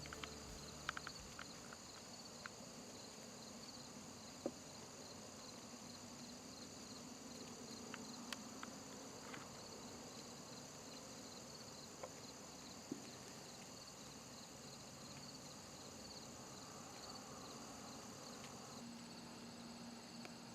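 Insects chirping steadily in a high, rapidly pulsing drone, with a few faint scattered clicks.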